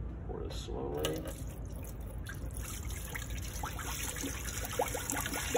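Water poured from a plastic bucket into the stainless-steel hopper of a Taylor C712 soft-serve machine: a steady splashing rush that starts about a second in, with bubbling plops in the second half as the hopper fills for its rinse.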